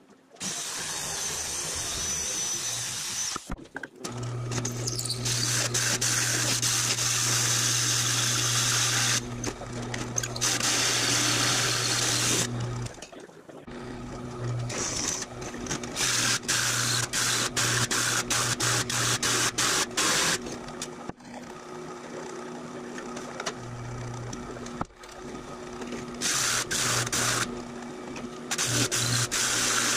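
Power tools cutting 0.063-inch aluminum sheet. For about the first four seconds a handheld electric sheet-metal shear runs. After that a drill press motor hums steadily while a hole saw cuts through the sheet in repeated bursts, the high cutting noise starting and stopping.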